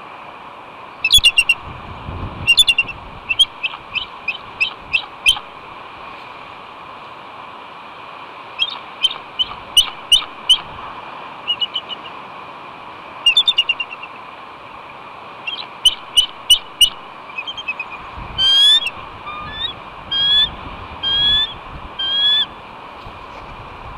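Bald eagle calling over and over: bursts of quick, high chirping notes, then several longer slurred calls near the end. These are the calls the eagle gives for help while ravens go after her egg.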